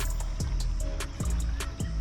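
Background music with a steady, quick beat over a bass line and held notes.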